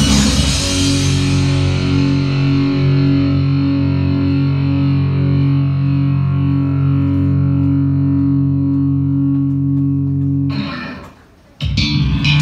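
Rock music with distorted electric guitar: a held chord rings out and slowly fades for about ten seconds. Near the end the sound drops out for about a second, then the music comes back in loud.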